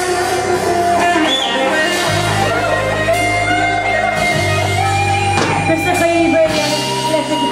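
Music: a guitar-led song with a wavering melody line over a bass line that changes note every couple of seconds.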